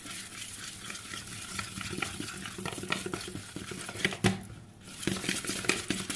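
A utensil stirring thick batter in a bowl by hand, fast scraping and ticking against the bowl's sides as flour is worked into warm milk and oil. One louder knock comes about four seconds in, followed by a short pause before the stirring resumes.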